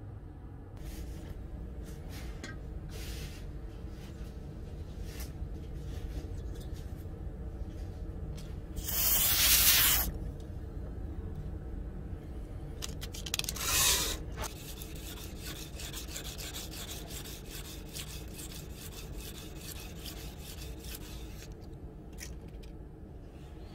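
Abrasive scraping and rubbing strokes on a 5160 spring-steel knife blade, cleaning off the dark scale left from heat treatment. Two loud, short bursts of hiss come about four seconds apart partway through.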